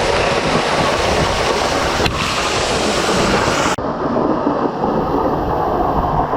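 Loud, steady rush of a waterfall heard close up, water pouring down around the microphone. About four seconds in the sound suddenly turns muffled, the high hiss dropping away.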